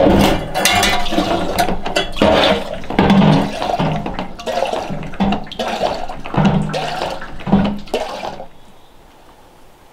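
Water gushing and gurgling into a metal kitchen sink from a lever hand pump worked in strokes, the surges coming roughly once a second. The water stops about eight and a half seconds in.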